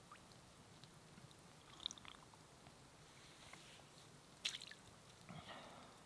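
Faint water sounds from a hand-held cup at a pond's edge: a few drips falling into still water, a sharp splash about two-thirds of the way through, then a short splash near the end as the cup's water lands on the pond surface.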